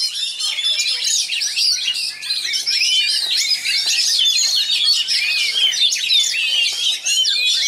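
Oriental magpie-robin singing a fast, dense, unbroken stream of varied chirps and whistles, the rapid tight delivery that kacer keepers prize.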